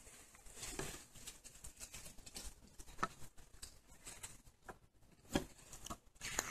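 Faint, scattered small clicks and light rustling, a handful of them slightly louder than the rest.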